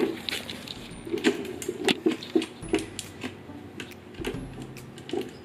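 PetSafe Flik battery-powered automatic cat teaser toy running: its motor works in short bursts to flick the string in and out of its slot, with repeated plastic clicks.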